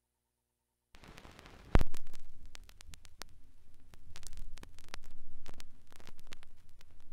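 After about a second of silence, a 12-inch vinyl record's lead-in groove starts playing under the stylus: steady surface noise with many crackles and pops, and one loud thump just under two seconds in.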